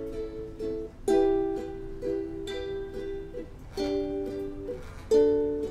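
Ukulele strummed in chords as an instrumental introduction, with heavier strums where the chord changes about a second in, near four seconds and again near five seconds.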